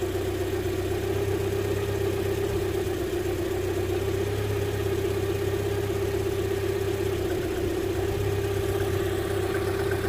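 Land Rover Freelander's 1.8 K-series four-cylinder petrol engine idling steadily. It is an idle the technician calls lumpy, a fault he puts down to a failing camshaft position sensor.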